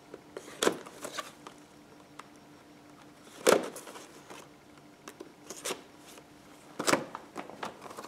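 Small cardboard box being handled and opened by hand: a few scattered rustles and light knocks, the loudest about three and a half seconds in.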